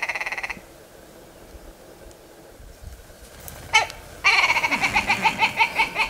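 Willow ptarmigan calling: a fast, speeding-up rattle of clucking notes that stops about half a second in. After a pause comes one sharp note, then a loud, even run of cackling notes, about five a second, as the bird takes off and flies.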